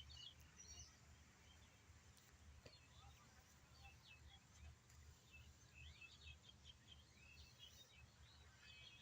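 Faint, scattered chirps of small birds over a low, steady rumble.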